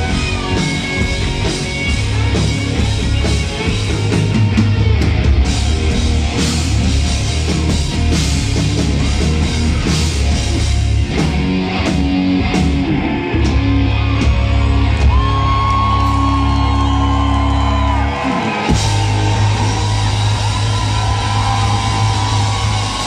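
Rock band playing live in a club hall: distorted electric guitars, bass, drums and singing with shouts, heard loud from the audience with the hall's echo. A high guitar note is held for a few seconds past the middle, and the band briefly drops out just after that.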